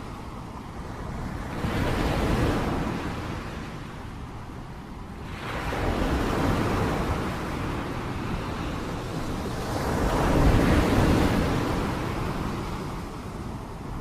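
Rain blown by wind: a steady rushing noise that swells and fades three times in gusts.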